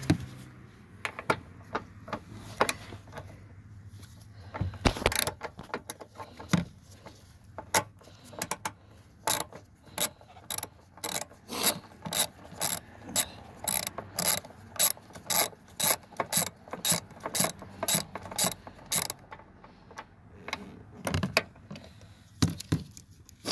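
Hand socket ratchet clicking as it is swung back and forth to back out a lower fender mounting bolt. A few scattered clicks and knocks come first, then a long even run of about two to three clicks a second that stops near the end.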